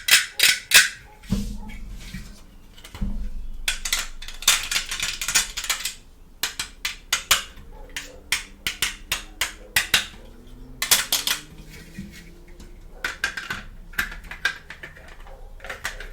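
Small plastic toy-kitchen pieces being handled: a string of clicks, taps and light clinks, with stretches of rustling and two dull thumps in the first few seconds.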